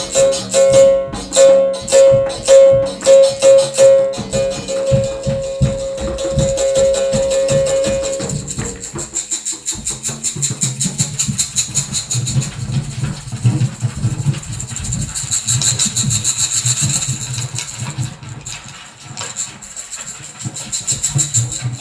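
Live percussive music, with the berimbau among the instruments. For the first eight seconds a ringing note repeats about twice a second, then a lower, busier rhythm takes over under a rattling shaker.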